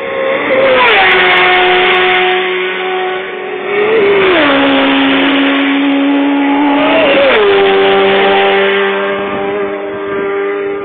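Racing motorcycles passing at full speed, three in all, each engine note dropping sharply in pitch as it goes by: about a second in, about four seconds in and about seven seconds in.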